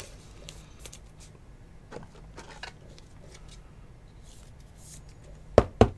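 A trading card being slid into a rigid clear plastic toploader by hand: faint rustling and light plastic clicks, then two sharp clicks close together near the end.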